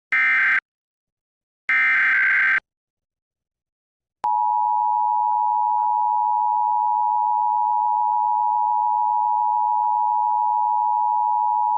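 Emergency Alert System broadcast: two bursts of SAME digital header data tones. About four seconds in, the steady two-tone EAS attention signal (853 and 960 Hz) begins and holds, opening a required monthly test.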